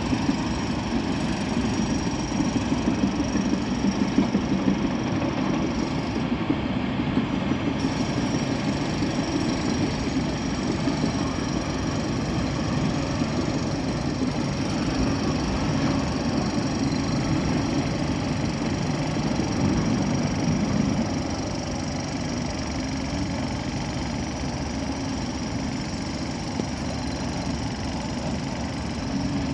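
Hydraulic excavators working on reinforced-concrete bridge debris: steady diesel engine noise with continual crackling and crunching as the debris is cut and broken.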